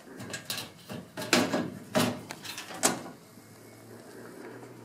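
Sheet-metal lower door of a Rheem gas furnace being fitted back on and closed: about four sharp metal knocks with rattles over three seconds, followed by a faint steady low hum.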